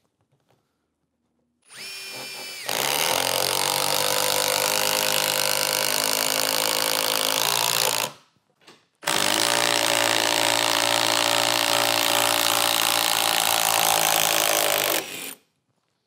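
Metabo HPT 36V MultiVolt triple hammer impact driver, powered through its corded AC/DC adapter, whines briefly as it spins up, then hammers loudly in two runs of about five to six seconds each, with a short pause between them.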